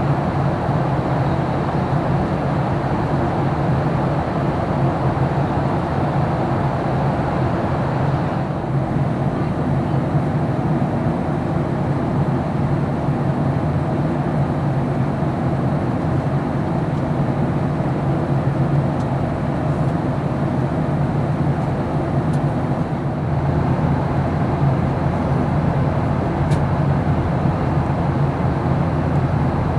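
Steady cabin noise of a Boeing 737-800 in flight: airflow over the fuselage and the hum of its CFM56 engines.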